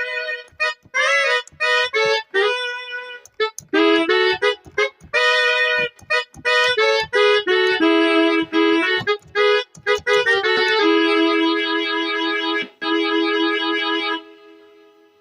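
A Yamaha Motif keyboard patch, sampled into an SF2 soundfont and played in the Caustic app, plays a run of short chords and notes. About eleven seconds in it settles into one long held chord, which stops about three seconds later and fades away.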